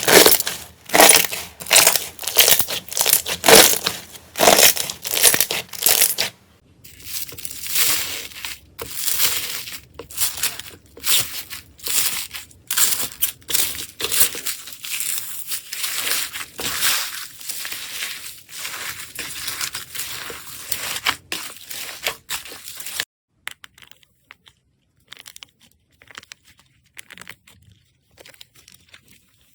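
Slime being squeezed and pressed by hand, giving crunchy crackling and popping sounds. The first six seconds are loud crunches at about two a second, followed by softer, denser crackling, and after about 23 seconds only faint, scattered crackles.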